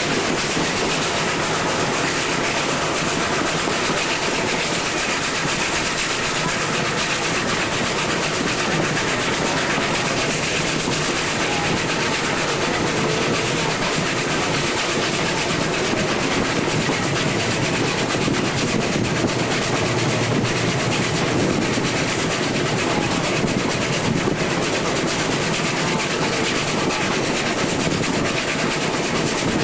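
A small locomotive-hauled train running steadily, heard from aboard its open passenger carriage: a constant rumble and rattle of wheels on the rails.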